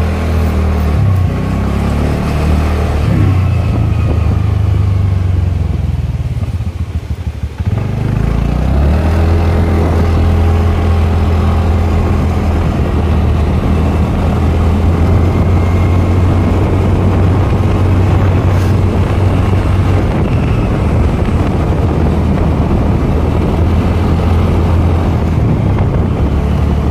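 Motor scooter engine running steadily as it is ridden, heard from the rider's seat as a low, even drone. About six seconds in, the engine eases off and fades for a couple of seconds, then picks up again.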